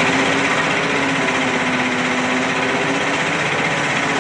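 Hurricane carnival ride machinery running steadily: a constant motor drone with a faint low hum beneath it.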